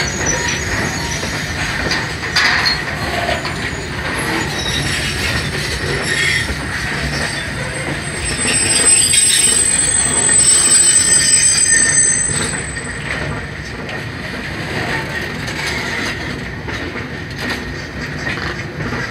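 Coal-laden freight wagons rolling past close by, their steel wheels rumbling and clattering on the rails. About eight seconds in a high steady squeal from the wheels joins in for some four seconds, the loudest part.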